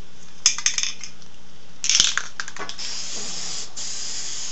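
Aerosol spray can of gray primer: a few short clusters of metallic rattles from the can, then a steady spray hiss starts a little under three seconds in and runs on.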